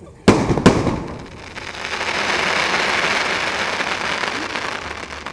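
Fireworks: two sharp bangs of shells bursting close together, then a dense crackling hiss that swells for a couple of seconds and fades away.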